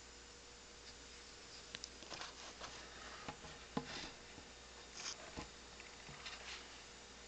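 Faint handling noise: scattered small clicks, taps and rubbing, with a few louder knocks about two to five seconds in, as the camera is moved and set down. Under it runs a faint steady electrical hum.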